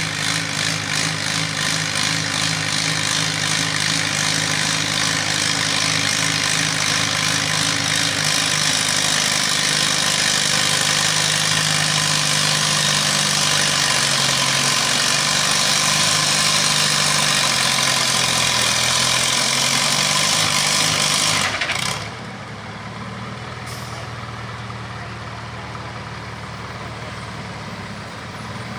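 Farmall tractor engine pulling hard at full throttle, its pitch sagging as it loads down under the sled. About 22 seconds in it cuts back suddenly to a much quieter idle as the pull ends.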